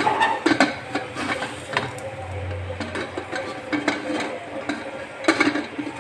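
A spoon stirring in a cooking pot, with irregular clinks and knocks against the pot.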